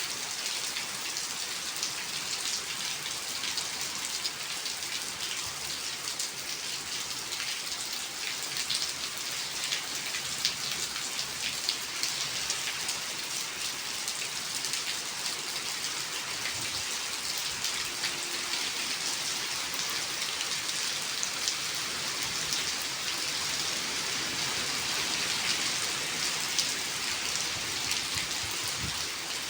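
Steady rain falling, a dense hiss with many small drops pattering on surfaces.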